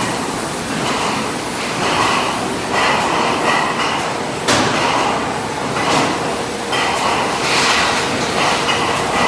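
Bottling line machinery running: rotary filler and conveyors making a steady mechanical din that swells about once a second, with a few sharp knocks.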